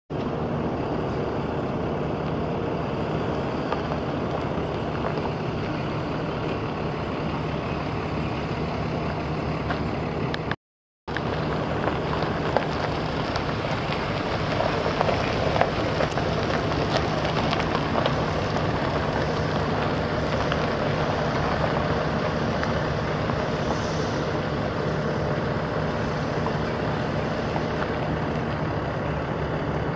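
Chevrolet 4.3-litre V6 gas engine of a pickup truck running steadily. The sound drops out for a moment just before eleven seconds in, then resumes.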